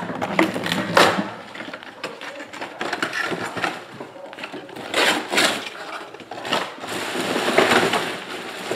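Crinkling and rustling of plastic and foil card-pack wrapping being handled, in irregular bursts.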